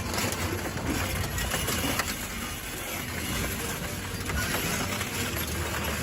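A heavy machine's engine running, with a steady low hum under a constant rattle of small clicks and knocks.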